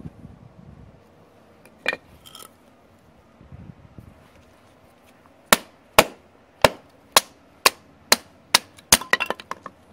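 Batoning: a wooden block knocks on the spine of a stainless steel full-tang bushcraft knife, driving the blade down through a stick of split wood. One knock comes about two seconds in, then from the middle a run of about nine sharp strikes, roughly two a second, coming quicker near the end.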